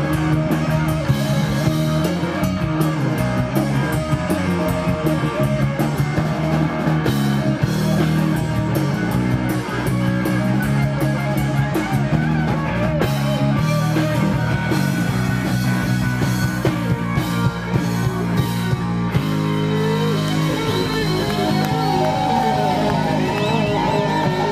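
Live rock band playing: electric guitars over bass and drum kit. About nineteen seconds in the low end changes, and bending notes run through the last few seconds.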